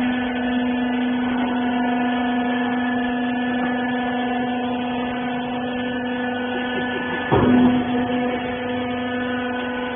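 Rag baler machine's motor and hydraulic pump running with a steady hum. About seven seconds in there is one sudden loud clunk, and the hum carries on.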